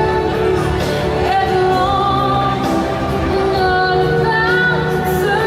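Music with a female voice singing long held notes over a sustained backing.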